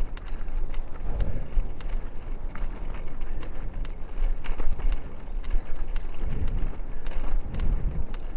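A bicycle being ridden, heard from a camera mounted on its frame: a steady low rumble of wind and tyres, with irregular sharp clicks and rattles from the bike.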